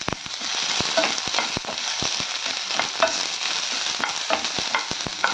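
Whole spices and fresh curry leaves frying in a little oil in a pan, a steady sizzle with many small crackles and clicks, as a spoon stirs them against the pan. The spices are being roasted for a pepper kuzhambu masala.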